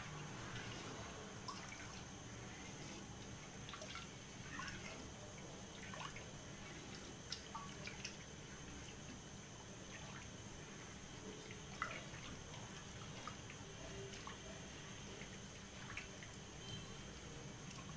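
Watermelon juice being stirred with a spatula in a metal pan: quiet liquid sloshing with scattered small clicks and ticks as the spatula moves against the pan, over a faint steady low hum.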